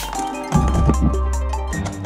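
Background music with drums and deep bass notes, the bass changing note about half a second in and again near the end.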